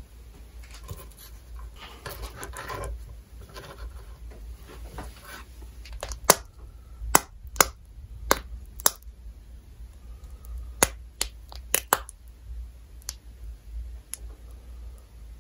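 Close-miked food-prep sounds: soft rustling and scraping as grilled chicken skewers are handled on a wooden cutting board, then white sauce squeezed from a plastic piping bag over the chicken, with a run of about ten sharp clicks and pops through the middle.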